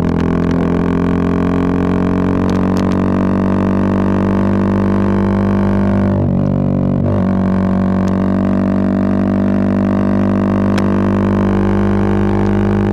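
Bajaj Pulsar 220F single-cylinder engine breathing through a Race Concepts full exhaust system, running at a steady pitch under way. About six seconds in the note briefly wavers and dips, then settles back at the same pitch.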